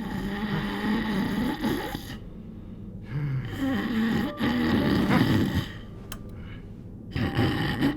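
Heavy snoring: long, drawn-out snores roughly every three seconds, the middle one the loudest.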